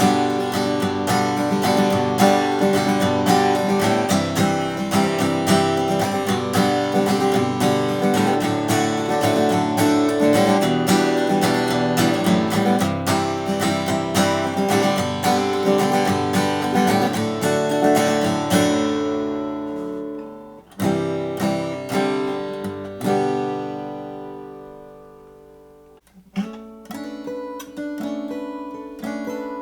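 A 1919 Martin 0-18 acoustic guitar being strummed and picked in a busy, steady run. It then thins out to a few separate chords, the last one left to ring and die away almost completely before the playing picks up again near the end.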